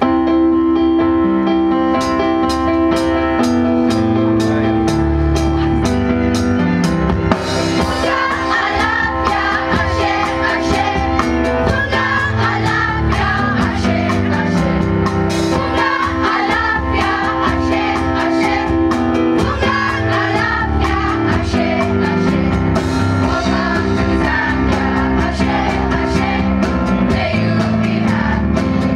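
A song with drums and singing starts abruptly. For the first few seconds it is a steady beat of regular percussion strokes over held notes, and voices come in singing over it from about seven seconds in.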